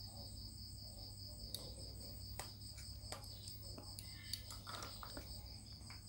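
Quiet bench work: a few soft clicks and taps as solder wire and a cable are handled during soldering, over a steady high pulsing trill and a low hum.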